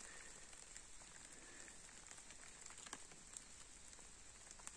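Faint, steady patter of rain falling through woodland, with scattered single drops ticking.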